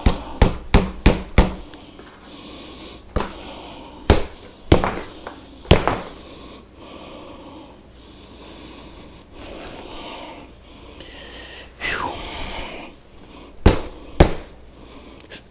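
Sharp knocks and thumps as a soft, partly inflated motorcycle tire is worked against its wheel rim to seat a bead that has sunk behind the rim. There is a quick run of about five knocks at the start, single ones every second or so after that, and two more near the end.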